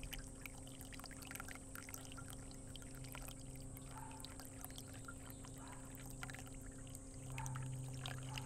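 Water trickling and dripping into a small outdoor medaka pond, with many small drip-like clicks over a steady low hum.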